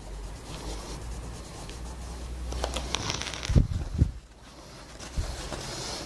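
Steel lock pick rubbed back and forth against 2000-grit sandpaper, a dry scraping that grows louder as the pick's edges get their final polish. Two low thumps come a little past halfway, followed by softer paper rustling.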